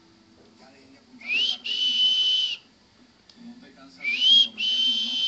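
Two whistles, each a short rising note followed by a held, steady high note, the second starting about two and a half seconds after the first.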